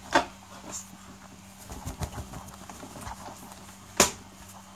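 Light taps and knocks of a marker and a hand against a whiteboard, with one sharp knock about four seconds in as a cloth is put to the board to wipe it.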